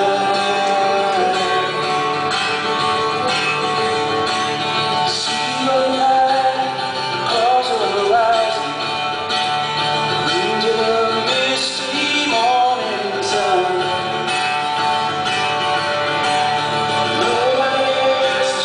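Live band music: a man singing over guitar.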